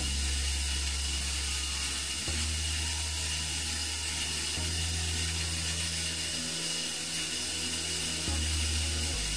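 Toilet tank refilling after a flush: the fill valve of a Delta Foundations two-piece toilet hisses steadily as water runs into the open tank, over a low hum.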